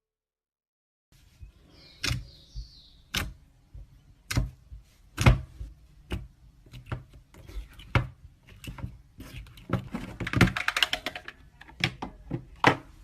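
Slime being pressed and poked, giving irregular sharp pops and clicks of trapped air, with a burst of dense crackling about ten seconds in. It begins about a second in, after a moment of silence.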